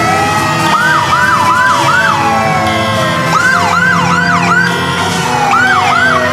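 Several fire truck sirens sounding at once, loud. Slow wails glide up and down over a few seconds, overlaid with runs of fast yelp sweeps, about three a second, in groups of four near the start and middle and two near the end.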